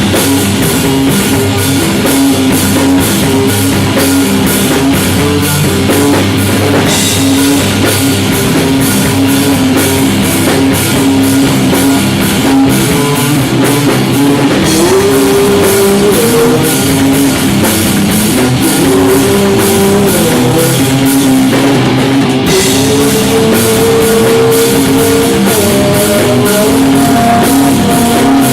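Live rock band playing an instrumental passage between sung verses: drum kit and guitars. A melodic line climbs in pitch in steps through the second half.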